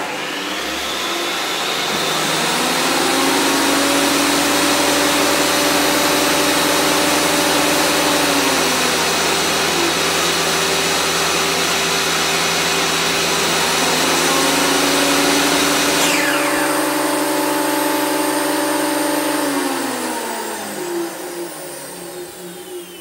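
A Makita thickness planer and a Makita circular saw running together at full speed, a steady loud motor and blade whine. About 16 seconds in one machine is switched off and spins down with a falling whine; the other winds down from about 19 seconds, fading out near the end.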